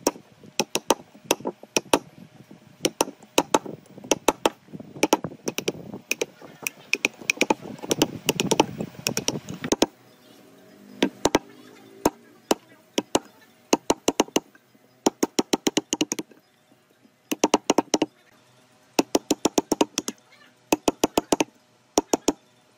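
Wooden mallet striking a steel chisel to chop a mortise in a wooden post: quick runs of sharp knocks, about five or six a second, broken by short pauses.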